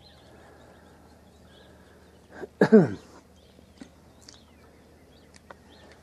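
Quiet outdoor background with a few faint high chirps, and about two and a half seconds in a short, loud vocal call that falls steeply in pitch.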